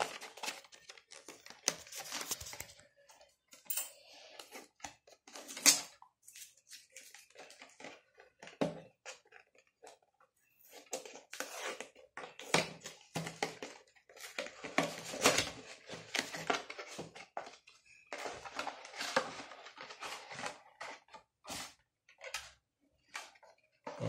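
A retail processor box and its plastic packaging being opened and handled by hand: irregular rustling, crinkling and tearing with scattered clicks, and one sharper click about six seconds in.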